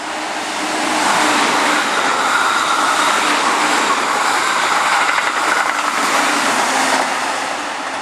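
Keihan 3000-series electric train passing close by through a station, its sound building up over the first second, holding steady and dying away near the end, with a few clicks of the wheels over rail joints as it goes by.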